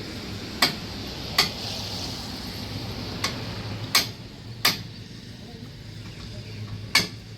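A series of sharp knocks or clicks, about six at irregular intervals, the loudest near the middle and near the end, over a low steady hum.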